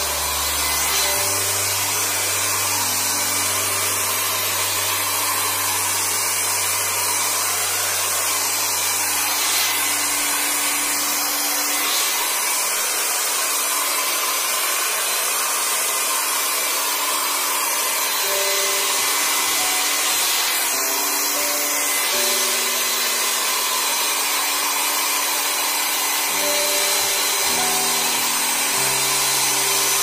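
Philips compact hair dryer running steadily, its fan and motor blowing a constant rush of air. Soft background music of slow, held notes plays under it.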